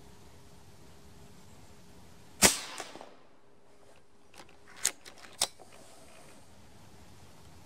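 A Reximex Throne PCP air rifle firing one shot of a 6.35 mm, 32-grain hollow-point pellet: a single sharp crack. About two seconds later a few quick sharp clicks as the rifle's action is cycled to load the next pellet.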